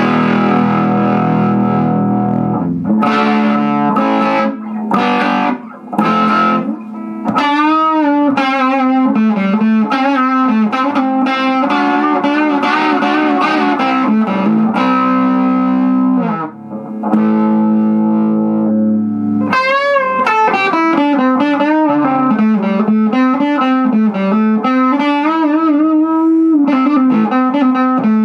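Electric guitar played through a hand-built Fender 5F1 Champ valve amplifier turned up into overdrive. It opens with a few struck chords, then blues licks with string bends and vibrato, with a short pause about two-thirds of the way through.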